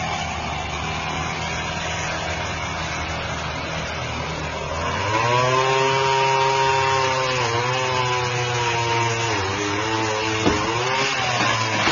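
Chainsaw running: a rough, noisy engine sound at first, then from about five seconds in a louder, steady high-revving engine tone whose pitch dips briefly about three times, as when the saw bogs under load.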